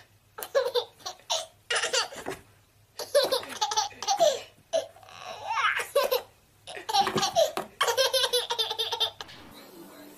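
A baby laughing hard in repeated bursts of belly laughs, broken by short pauses for breath.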